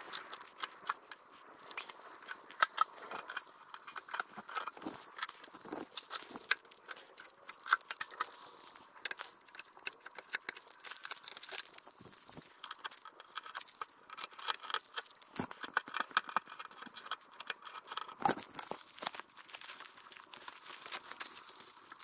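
Masking tape being peeled and crumpled by hand: a dense, irregular string of crackles, rips and crinkles with a few sharper snaps.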